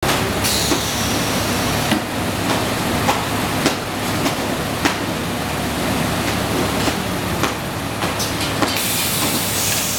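Semi-automatic toilet paper roll packing machine running: a steady mechanical hum with sharp clacks at irregular intervals, roughly one to two a second, and a burst of hiss near the end.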